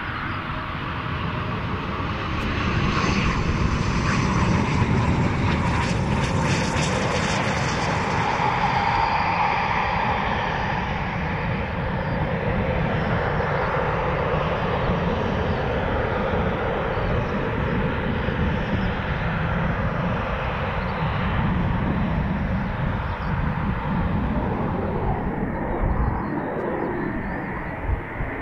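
Eurofighter Typhoon jet engines running: a continuous jet rumble and hiss as the fighters land and taxi, loudest and brightest in the first ten seconds.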